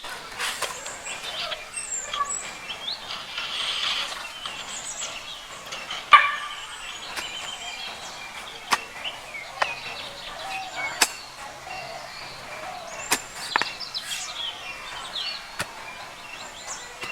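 Birds chirping steadily, with a scattering of sharp knocks, about seven in all, the loudest about six seconds in.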